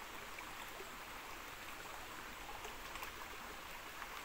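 Shallow creek water running steadily over rocks and bedrock, a continuous trickling babble.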